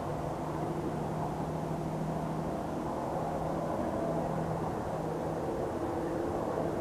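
Distant engine drone: a low steady hum that comes and goes in the second half, over breezy outdoor noise.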